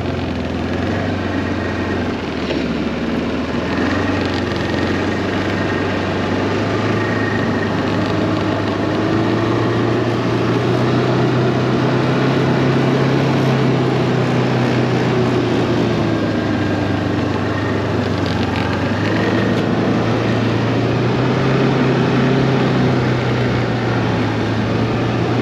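BRP Ski-Doo Tundra 600 ACE LT snowmobile's three-cylinder four-stroke engine running under way at a steady cruise. Its pitch rises a little and eases back twice.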